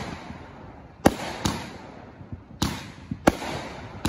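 Aerial fireworks going off: a string of sharp bangs, two close together about a second in and two more in the second half, each followed by a fading tail.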